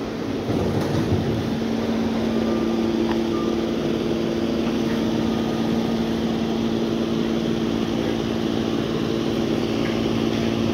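Steady mechanical hum of warehouse machinery, with a second, higher hum setting in about two and a half seconds in as a Crown stand-up electric forklift drives a large crate into a trailer.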